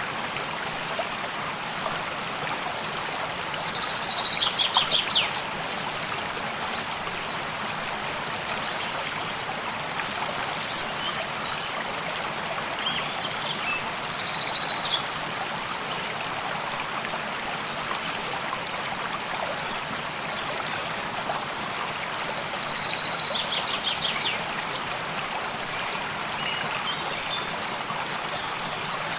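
Water stream flowing steadily. A songbird sings three short high phrases, each a note followed by a quick trill, about ten seconds apart.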